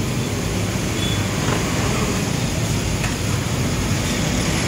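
Steady roaring background noise of a roadside food stall, with motorbike traffic on the street outside.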